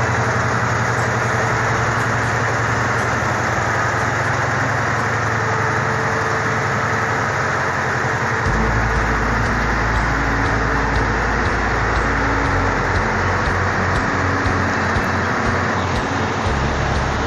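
Scania 143's V8 diesel engine idling steadily. It is being run to recharge its batteries after standing unused for a long time. Its low rumble shifts about halfway through.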